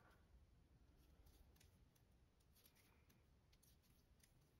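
Near silence, with faint, scattered clicks of metal knitting needles as stitches are worked.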